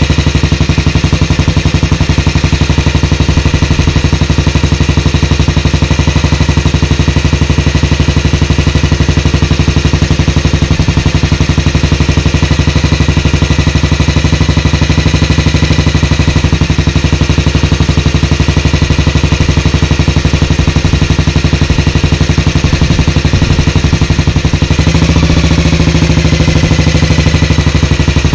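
1954 Matchless G3/LS single-cylinder four-stroke engine idling, with a rapid, even exhaust beat. Oil has begun returning to the tank, so the oil system is circulating. Near the end the engine note rises a little.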